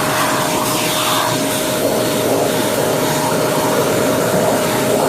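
Shark upright vacuum cleaner running steadily with its brush attachment, cleaning carpeted stairs, with a constant motor whine.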